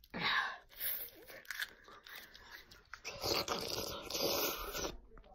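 Close-up mouth noises into a phone's microphone, chewing and breathing. There is a loud burst right at the start, scattered clicks after it, and a longer loud stretch from about three to five seconds in.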